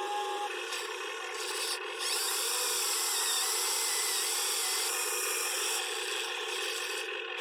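Small electric motors and gearboxes of a radio-controlled model excavator running with a steady mechanical whine and grinding rasp; one whine slides up and down in pitch through the middle.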